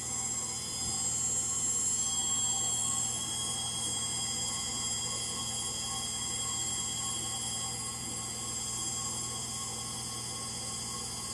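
Frigidaire Gallery front-load washer spinning steadily in its final spin, a hum with a steady high-pitched whine over it. The owner puts the noise down to bad motor bearings.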